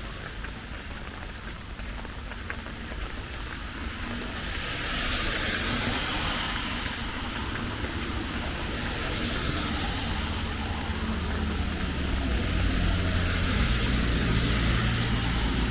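Steady rain with a motor vehicle passing on a wet road: a hiss swells about five seconds in, and a low engine hum grows louder over the last few seconds.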